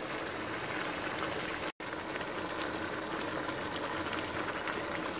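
Minced-meat and tomato sauce simmering over low heat in a pan: a steady soft bubbling with small pops. It drops out for a split second about two seconds in.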